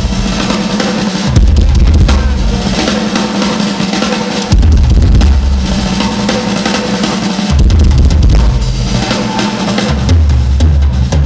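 Live rock drum solo on a Tama drum kit: fast bass drum runs under snare hits and cymbals. The heavy low bass drum part comes in stretches of about three seconds with short breaks between them.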